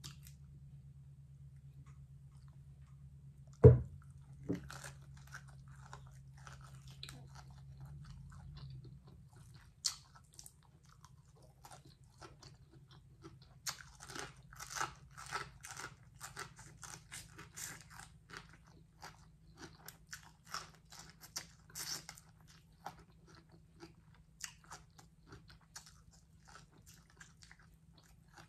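A person biting and chewing crunchy fried food close to the microphone, the crackly chews coming thickly from about halfway through. A single loud thump about four seconds in, and a low hum that stops around nine seconds in.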